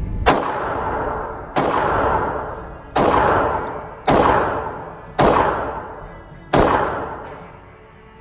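Six shots from a Diamondback DB380 .380 ACP pocket pistol, fired one at a time about a second and a quarter apart, each ringing out and dying away before the next.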